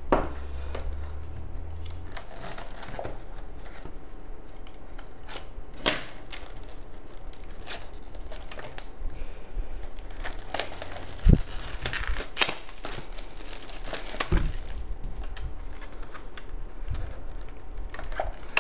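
Clear plastic shrink wrap being cut, peeled and pulled off a small cardboard retail box, crinkling and crackling throughout, with a few sharp clicks, the loudest about 11 and 14 seconds in.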